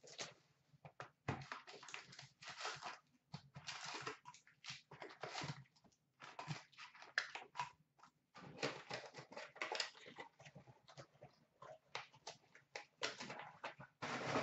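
Hockey card packs being torn open and handled: irregular rustling and crinkling of the pack wrappers and cards in short bursts.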